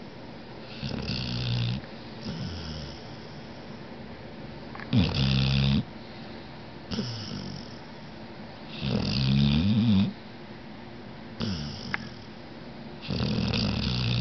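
A sleeping pet snoring in a slow, even rhythm: a louder snore about every four seconds, each followed about a second later by a shorter, softer one.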